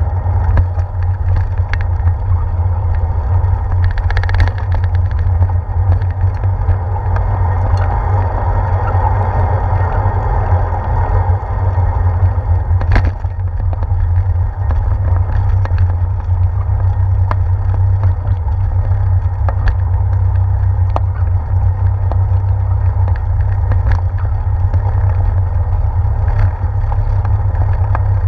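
Loud, steady low rumble of wind and road vibration on a handlebar-mounted action camera as a bicycle rolls along, with a few sharp knocks as the wheels hit bumps in the bridge and boardwalk deck.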